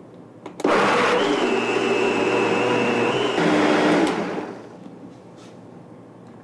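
Vitamix blender motor starting suddenly and running at high speed, pureeing cooked carrot soup until smooth. Its whine changes pitch a little past three seconds in, then the motor winds down and stops after about four seconds.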